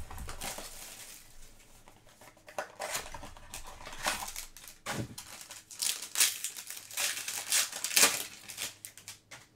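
Packaging of a trading-card box crinkling and tearing as the box is opened by hand. After a quiet first two seconds it comes as a string of short crackling rustles.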